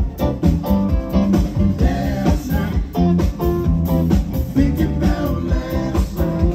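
Live band music: guitar over bass and drums, with a steady beat.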